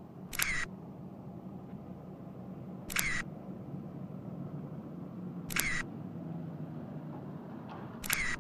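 Camera shutter click sounding four times, evenly spaced about every two and a half seconds, as each photo comes up, over a steady low hum.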